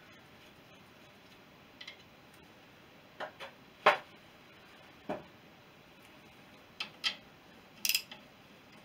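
Scattered metallic clinks and knocks of hand tools and loose engine parts being handled while a BSA B31 motorcycle engine is dismantled. There are about eight separate irregular taps, the loudest about four seconds in.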